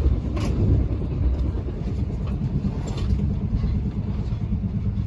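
Running noise heard inside a moving passenger train: a steady low rumble of wheels on the rails, with a few short clicks.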